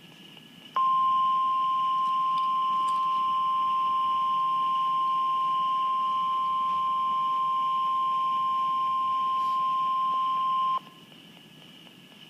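NOAA Weather Radio's 1050 Hz warning alarm tone: one steady high beep held for about ten seconds, starting about a second in and cutting off sharply, over faint radio hiss. The tone signals that a severe weather warning is about to be read.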